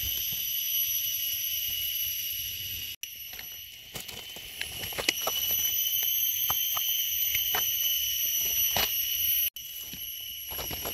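A steady, high-pitched drone of night insects that holds one pitch throughout. Under it come crackling rustles of dry leaf litter and light clicks as a mushroom is picked and its stem is cut with a knife. The sound cuts out for an instant twice.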